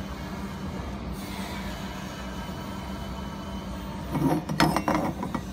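Steady machinery hum with a low tone, with a brief louder, irregular burst about four seconds in.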